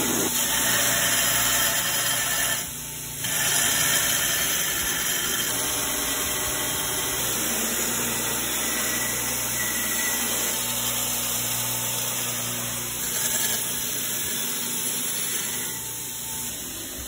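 Belt grinder running while a forged steel knife blade is ground against its abrasive belt, a steady grinding noise with a brief dip about three seconds in.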